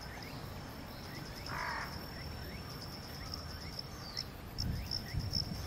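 Outdoor ambience of insects: a steady high-pitched buzzing with faint short chirps, and a brief rasping call about one and a half seconds in. A few soft low bumps come near the end.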